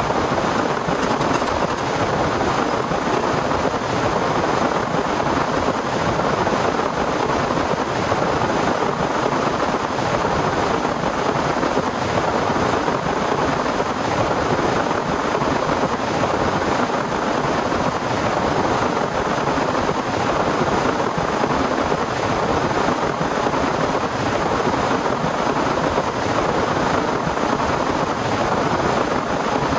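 Heavy rain falling steadily, an even, unbroken downpour.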